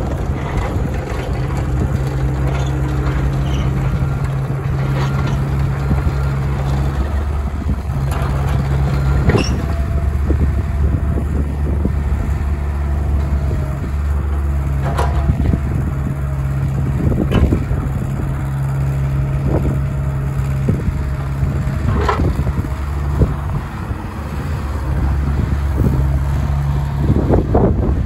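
Cat 304C CR mini excavator's diesel engine running steadily while the boom, arm and bucket are worked hydraulically, its note shifting several times as the hydraulics load and unload it. Scattered sharp knocks come from the working machine.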